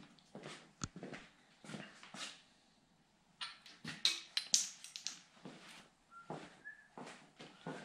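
A dog whining and whimpering in short high-pitched whines, with scattered tool-handling clatter and a single sharp knock about a second in.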